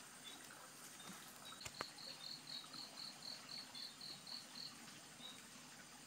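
Faint insect sounds: a steady high-pitched drone, with a run of about a dozen evenly spaced high chirps, about four a second, starting about a second and a half in and stopping shortly before the five-second mark. A single faint tap comes near two seconds in.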